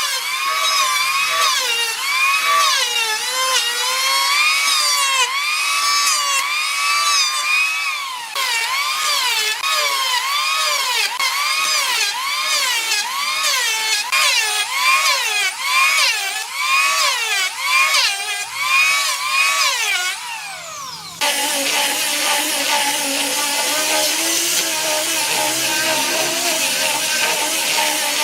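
Handheld electric power tool working wood, its motor pitch dipping and recovering in regular strokes, about once or twice a second, as it is pushed back and forth under load. About 21 seconds in, this cuts off and a steadier machine sound with several held tones takes over.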